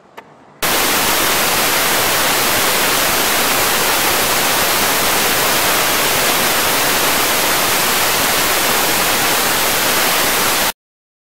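Loud, steady electronic static hiss spread evenly across all pitches, with a faint high steady tone inside it. It switches on suddenly about half a second in and cuts off abruptly near the end into dead silence.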